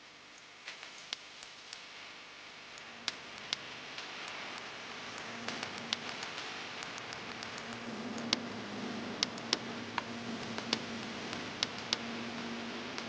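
Irregular sharp clicks and taps, about fifteen of them, over a steady hiss that slowly grows louder. A faint low hum comes in about eight seconds in.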